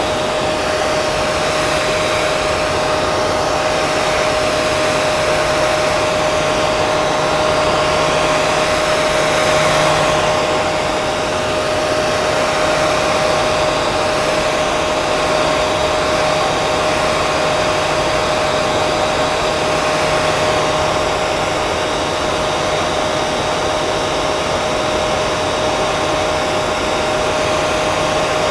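Hair dryer running continuously: a steady rush of blowing air with a constant motor whine.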